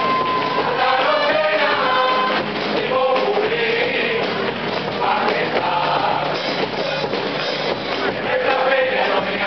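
Carnival murga group singing in chorus, several voices together on held and sliding notes, accompanied by guitars.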